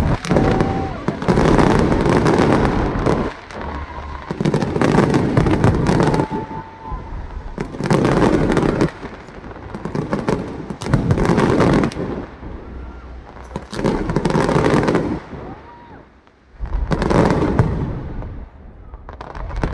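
Fireworks display: a run of loud bursts about every three seconds, each followed by dense crackling, with short whistling glides in between.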